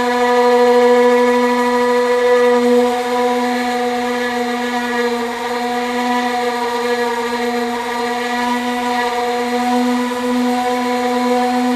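Handheld power sanding tool running steadily under load with a constant high whine, a sanding pad grinding down a body panel.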